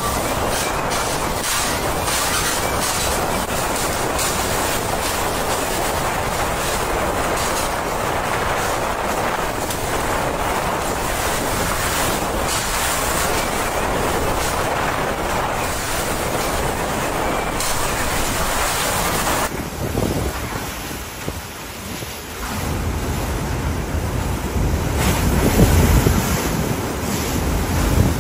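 Hurricane-force wind with driving rain, a loud, steady rush of noise. About two-thirds of the way through it changes, dipping for a moment before heavier low gusts buffet the microphone.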